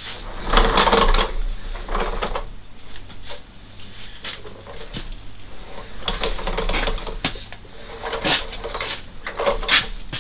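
Irregular clattering and knocking in several separate bouts, the loudest about a second in, others around six and eight to ten seconds in.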